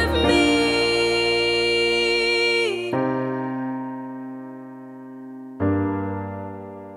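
The song's closing bars on electric piano: the full backing stops about three seconds in, leaving a held piano chord that fades, then one last chord struck near the end and left to ring out.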